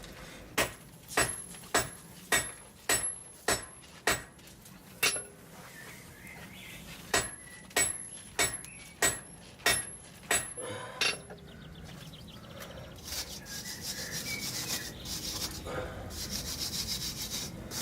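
Hand hammer blows on a hot steel billet on an anvil, each with a high ring: about eight strikes at a steady pace of nearly two a second, a brief pause, then about seven more. In the last few seconds there is a rapid rasping scrape on the steel.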